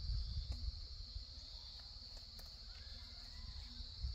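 A steady, high-pitched insect chorus over a low, uneven rumble, with a few faint clicks.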